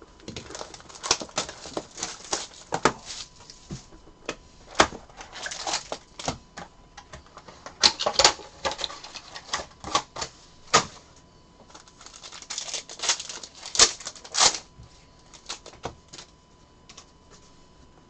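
Hands unwrapping a box of football trading cards and its foil pack: wrapper and foil crinkling and tearing, with sharp clicks and taps of cardboard and cards against the table. These come in clustered bursts and die down for the last few seconds.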